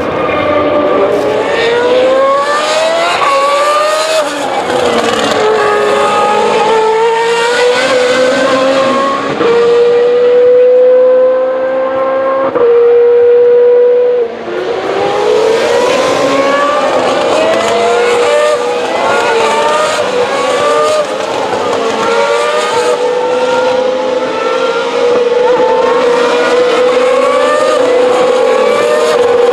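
Formula 2 cars' 4.0-litre V8 engines at racing speed, several at once, each accelerating through the gears with repeated rising revs and quick drops at the upshifts. Around the middle, one car holds a steady high note for a few seconds, the loudest part.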